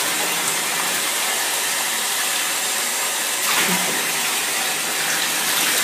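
Steady rush of water running into a bathtub during a dog's bath.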